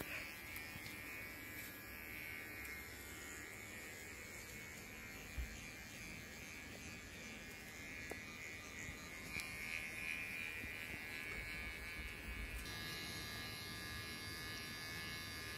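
Small handheld electric pet trimmer running with a steady buzz as it is worked through a Yorkshire terrier's coat.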